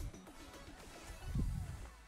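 Background music, with low thumps of footsteps on the rocky shore about a second and a half in.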